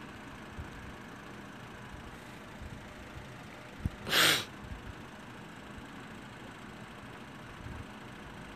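A short, loud breath noise close to the microphone about four seconds in, just after a faint click, over a steady low hiss.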